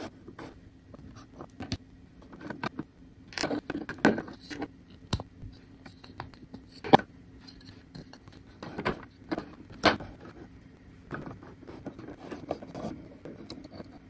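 Scattered clicks, taps and light scraping of 3D-printed plastic lock parts being handled: white pegs pushed into the holes of red wheel discs and the discs set onto the frame. The sharpest single clicks come about seven and ten seconds in.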